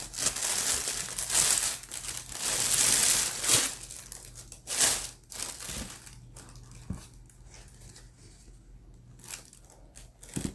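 Shoe-box packaging being unwrapped and handled, crinkling and tearing, loudest in the first half and then dying down to occasional light rustles and clicks.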